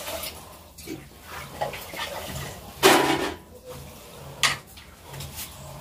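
Metal kitchen pots and vessels being handled, clinking and knocking, with louder clatters about three seconds and four and a half seconds in.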